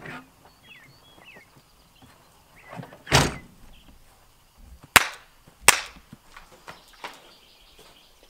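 A pickup truck door slams shut once, about three seconds in. About two seconds later come two sharp cracks, roughly half a second apart. Faint bird chirps come early.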